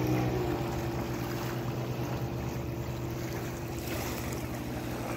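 Boat motor running at a steady hum, with water washing against the hull as the boat moves along the river.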